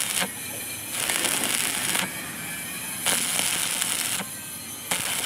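Stick welding arc crackling and sizzling as an electrode burns against steel, in louder stretches of about a second alternating with quieter ones.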